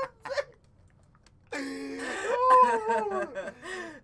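A person's voice lets out a long, drawn-out wail, starting about a second and a half in after a near-silent gap and sliding down in pitch before breaking off.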